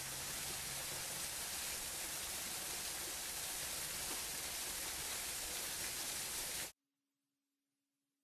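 Steady rush of a small garden waterfall pouring into a pond, which cuts off suddenly near the end, leaving near silence.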